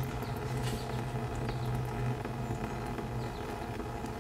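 Engine oil dripping from a leaking oil cooler line gasket on an LQ4 V8, a light irregular patter of drips over a steady low hum that fades out about three seconds in.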